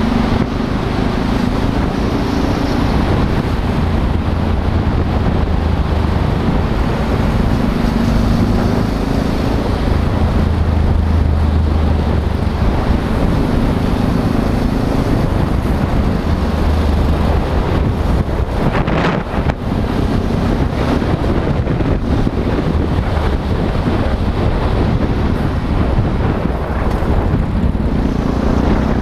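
Motorcycle engine running under way in traffic, its note steadying and shifting as the rider speeds up and eases off, with road and wind noise on the microphone.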